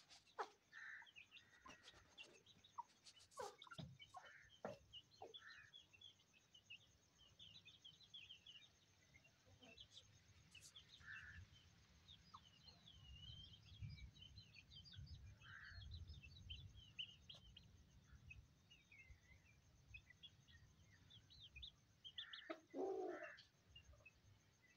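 Faint chirping of small birds, many short high chirps in quick succession, among chickens with chicks. A few sharp clicks come in the first seconds, and a louder, lower call from a chicken comes near the end.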